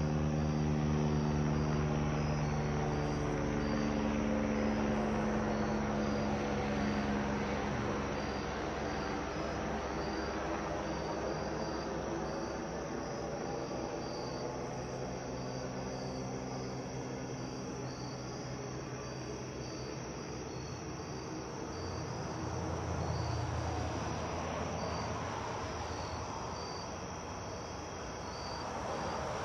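Light helicopter flying past and away, its engine and rotor note sliding lower in pitch over the first several seconds and fading, with a fast beat of rotor blades under it. Crickets chirp in a steady pulsing rhythm throughout.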